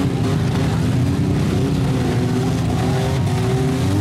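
Demolition derby trucks and vans with their engines running and revving, several at once, the pitch rising and falling as they push and maneuver.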